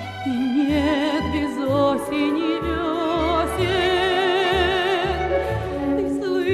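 Background music from a slow Russian-language song: long held melody notes with a wide vibrato over a steady bass line, with no words sung.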